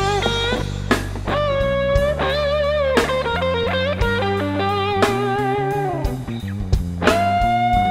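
Instrumental background music: an electric guitar plays long held lead notes with vibrato and bends over a steady bass line.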